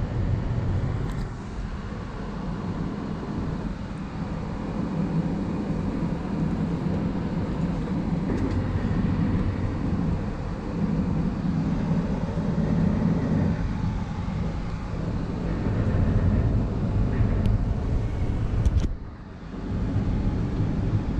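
2020 Ford Transit T-150 van's engine idling, a steady low rumble heard from inside the cab with the door open.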